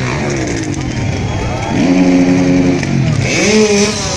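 Freestyle motocross dirt bike engine revving, its pitch sweeping down, then held high and steady for about a second midway, then blipped up again near the end.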